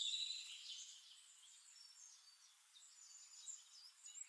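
Faint high-pitched chirping and warbling, louder in the first second and then dying away.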